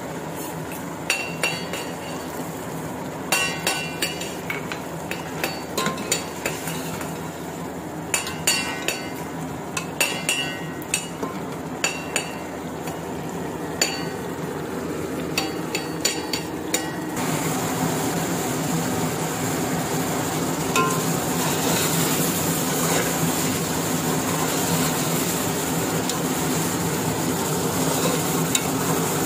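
A metal slotted spoon stirring chicken in a metal cooking pot, clinking and knocking against the pot in irregular strokes. After about 17 seconds a steady sizzle of chicken frying in oil takes over and continues.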